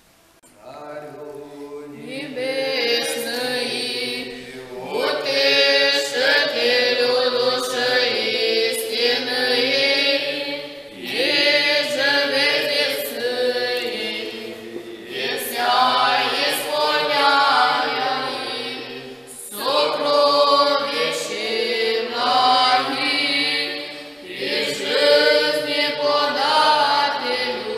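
A choir singing a slow church chant in long phrases of about four to six seconds, each separated by a brief pause.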